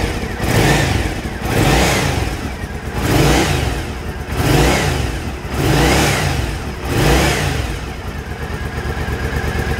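2012 Triumph Speedmaster 865's parallel-twin engine running shortly after a start without choke, blipped about six times: each rev rises and falls in pitch, about one every second and a half. It settles to a steady idle for the last couple of seconds.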